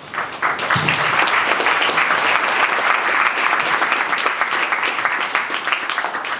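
Audience applauding: many hands clapping together, swelling within the first half second and tapering off near the end.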